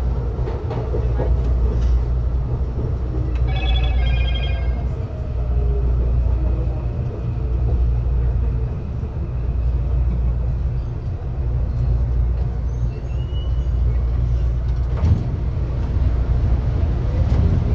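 Electric commuter train of São Paulo's CPTM Line 8 running on the rails, heard from inside the passenger car as a steady low rumble that swells and eases. A brief high tone sounds about four seconds in, and a single knock about fifteen seconds in.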